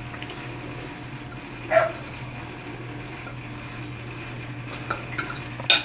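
Quiet eating sounds over a steady low hum: a fork working on a ceramic plate and chewing, with a short sound a little under two seconds in and a sharp click near the end.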